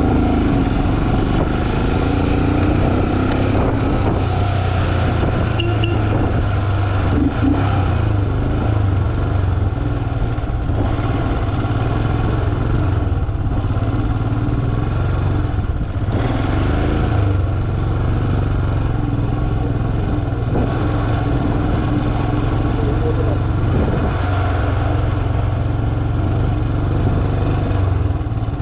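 Motorcycle engine running steadily under way, its pitch rising and falling now and then with the throttle.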